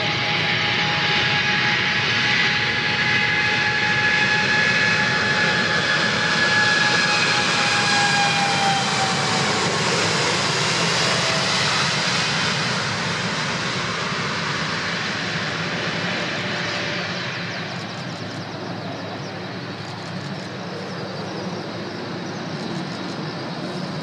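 Boeing 787-8's Rolls-Royce Trent 1000 turbofans at takeoff power as the jet rolls down a wet runway and climbs away. The engine whine falls in pitch as the plane passes and is loudest around the middle, then fades steadily as it climbs into the distance.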